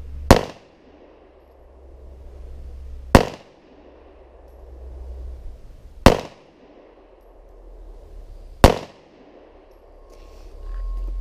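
Kel-Tec PF9 9mm pistol fired four times in slow, deliberate fire, the shots about three seconds apart, each a sharp crack with a short ringing tail.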